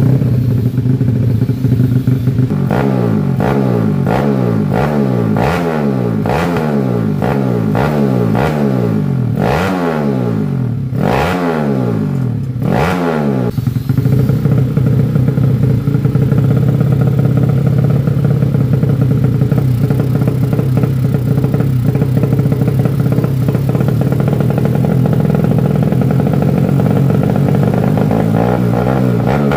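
Yamaha Jupiter 200cc single-cylinder four-stroke engine being blipped, about a dozen quick revs that rise and fall in quick succession. About halfway through, it settles into running steadily at one engine speed.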